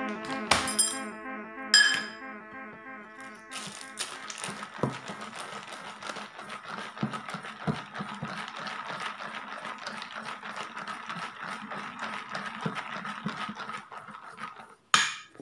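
Background music for the first few seconds, then a wire whisk stirring thick pancake batter in a stainless steel bowl, with continuous scraping and small irregular clicks of the whisk against the metal.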